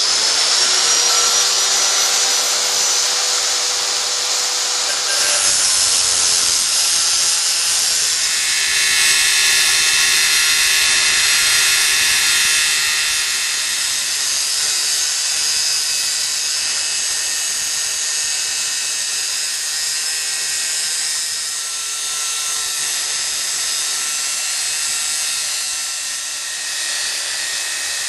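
Electric angle grinder with an abrasive cutting disc spinning at full speed, then cutting through a steel bar held in a vise. It gives a loud, steady motor whine with a harsh grinding hiss of the disc biting into the steel.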